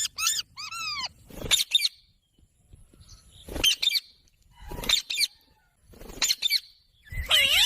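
Ringneck parrot giving short, shrill calls that arch up and down in pitch. They come in several quick clusters with pauses of about a second between them.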